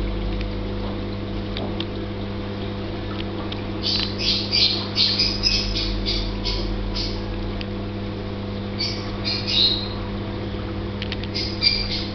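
Steady hum of reef aquarium pumps, with clusters of short high-pitched chirps about four seconds in, again near ten seconds and near the end.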